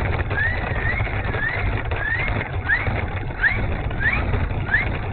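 Electric motor of an RC warbird whining in short rising surges, about eight in a row, over heavy wind rumble on the microphone.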